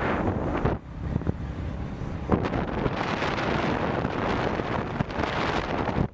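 Wind buffeting the microphone while travelling along a road, with a vehicle engine running low underneath. The wind noise drops briefly just under a second in.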